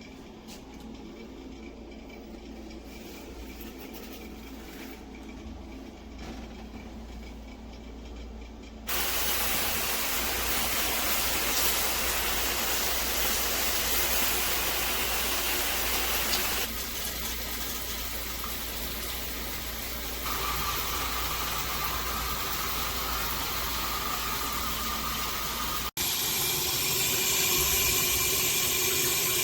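Water spraying from a handheld shower head, a steady hiss. It is quieter at first and jumps much louder about a third of the way in, then changes in tone twice more.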